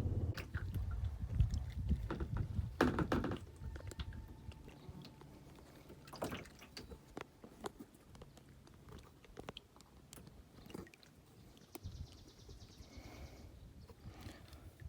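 Scattered light knocks and small water splashes, loudest in the first few seconds and then faint.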